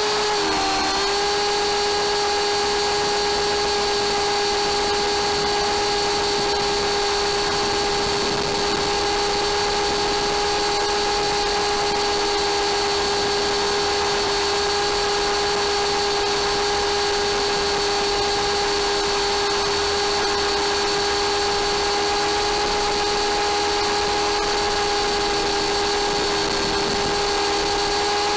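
Electric motor and rotor drivetrain of an MSH Mini Protos RC helicopter running at a steady speed, heard close up as a constant high whine. The pitch dips briefly about a second in and then holds.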